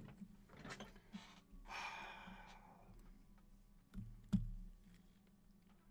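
Quiet handling of trading cards and a magnetic one-touch card holder: a few light clicks, a soft breath-like rustle about two seconds in, and a sharper click or snap about four seconds in.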